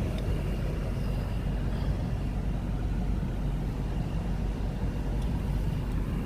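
Steady low rumble of a car on the move, the road and engine noise as heard from inside the vehicle.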